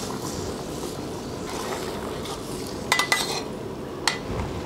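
Braising sauce simmering steadily in a wok while a whole sea bass is turned over in it with a metal spatula. A quick run of metal clinks from the spatula and ladle against the wok comes about three seconds in, and one more clink comes near the end.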